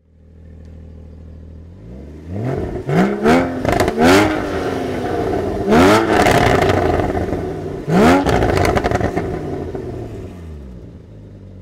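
Porsche Boxster Spyder (981) 3.8-litre flat-six exhaust, idling at a standstill, then free-revved in a string of throttle blips from about two seconds in. The pitch rises and falls with each blip, and the engine settles back toward idle near the end.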